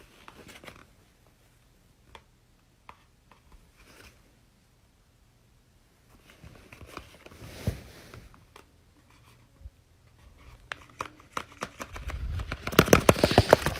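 Paper being handled: soft rustling, crinkling and scattered small clicks, growing into a busier, louder run of crackling near the end.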